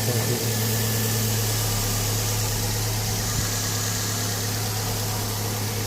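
Vauxhall Zafira engine idling steadily with a strong, even hum, running after its timing belt has been replaced.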